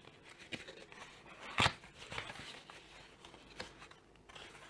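Packaging being handled as the box contents are taken out: light rustling with a few scattered clicks and knocks, the sharpest about one and a half seconds in.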